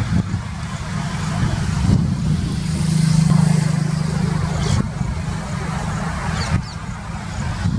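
Highway traffic noise: vehicle engines and tyres running steadily, with one engine hum swelling about two and a half seconds in and dropping away near five seconds as a vehicle passes.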